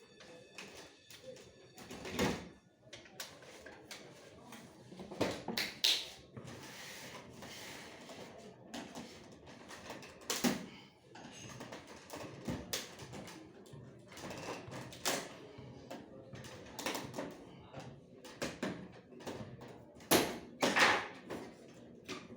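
Irregular clicks and knocks of printer parts being handled and worked on, with a few louder knocks, the loudest near the end.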